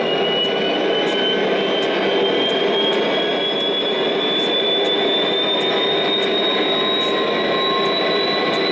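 MTH O scale model locomotive's sound system playing an EMD SD40-2 diesel sound file: a steady engine rumble with a whine that climbs slowly in pitch.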